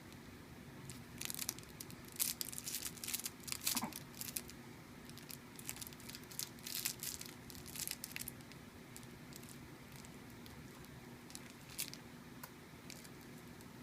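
Crinkling and rustling of a baby's play mat as the baby moves on it, in a busy patch of crackly bursts over the first half, then only a few scattered crinkles.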